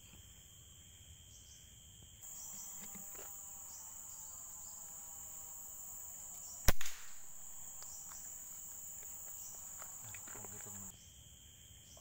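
A single sharp air-rifle shot about two-thirds of the way in, fired at a bird in the treetops, over a steady high drone of insects.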